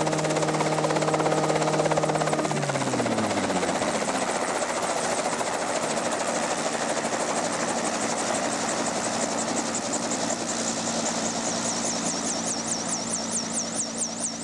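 Homemade helicopter's Subaru engine running steadily, then falling in pitch about two and a half seconds in, leaving a steady whooshing with a low hum. Near the end a regular pulsing of the rotor comes through, about three beats a second.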